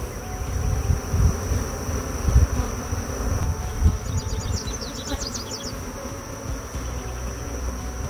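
Honeybees buzzing around the microphone in defensive, agitated flight after stinging; the buzz swells and fades. A steady high whine runs under it, and a brief run of high chirps comes about halfway through.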